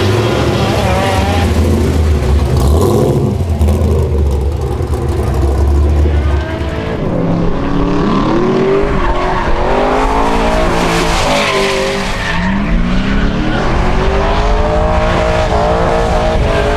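Holden Commodore drift car's engine under hard throttle, running at steady revs for the first few seconds, then revving up and down repeatedly with tyre squeal as the car slides.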